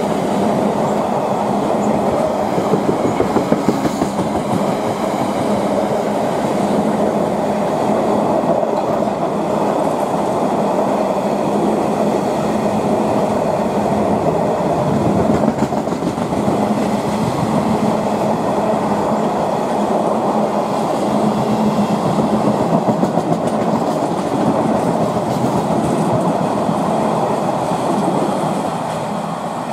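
Container freight train's wagons rolling past close by, a steady rumble of wheels on rail with clusters of clacking as wheelsets cross rail joints. The noise begins to fade near the end as the last wagons go by.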